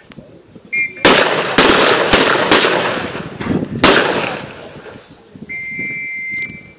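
M14 rifles firing from a line of shooters: about six sharp shots over roughly three seconds, starting about a second in, each trailing off in echo. A short high beep sounds just before the first shot, and a steady one of about a second comes near the end.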